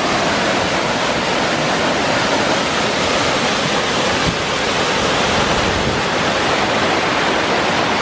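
Mountain stream rushing and splashing over rocks and a small stone weir below a waterfall, a loud steady roar of water. One brief knock about four seconds in.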